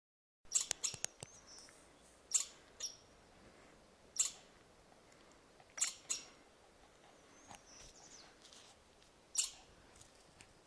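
Chipmunk giving sharp, high-pitched chips: a quick run of several near the start, then single or paired chips every second or two.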